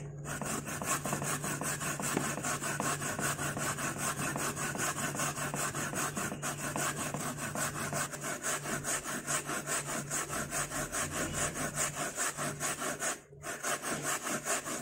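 Mature coconut flesh being grated by hand on a wooden grater with metal teeth: rapid, regular rasping strokes, several a second, with a brief pause a little before the end.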